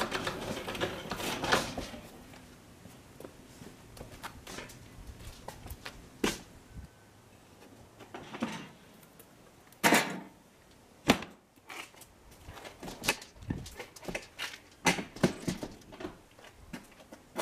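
A wooden-framed solar oven being opened and loaded: its hinged reflector lid and glass door knock and click as they are handled, with rustling at first and a few sharp knocks, the loudest about ten seconds in.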